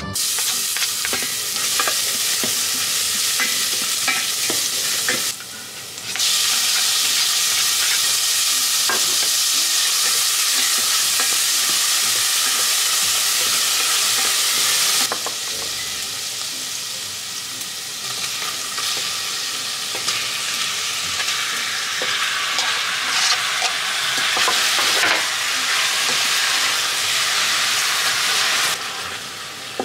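Garlic and onion sizzling in hot oil in a stainless steel pot while a spatula stirs them. The sizzle starts sharply as the garlic goes in, briefly dips about five seconds in, eases somewhat about halfway through, and drops near the end.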